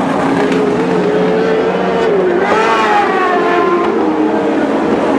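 Several Lightning Sprint cars racing together, their engines overlapping at different pitches. One engine climbs sharply in pitch about two and a half seconds in as it accelerates.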